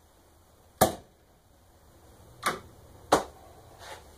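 Three sharp clicks and a fainter fourth as the switch on a homemade dust collector is worked, with no motor running up: the collector does not start, a sign of its wiring fault.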